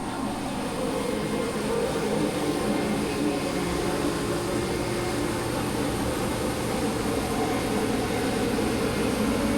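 A machine running steadily, a constant mechanical hum with a few held tones.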